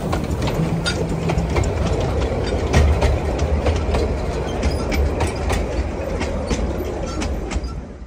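Narrow-gauge passenger train's carriages rolling past close by: a low rumble with irregular sharp clicks of the wheels over the rail joints.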